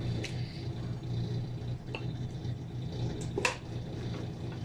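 Wooden spoon scooping thick spinach-and-mutton curry out of an aluminium pressure cooker, with a few sharp taps of the spoon; the loudest comes about three and a half seconds in. A steady low hum runs underneath.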